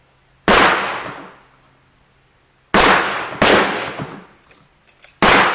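Four shotgun shots: one, then a quick pair less than a second apart, then one more. Each bang rings out for about a second afterwards.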